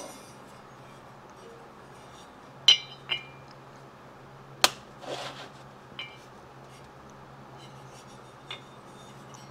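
Handling noise from a ported two-stroke aluminium motorcycle cylinder being picked up and turned over on a workbench. It makes a few sharp clinks and knocks, some with a brief metallic ring, the loudest about halfway in, followed by a short scrape, over a steady low hum.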